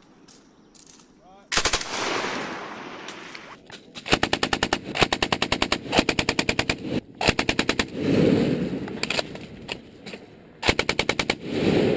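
Belt-fed machine gun firing bursts on a range: a short burst about a second and a half in that rings out, then a long burst of about three seconds, another of about two seconds, and a short burst near the end.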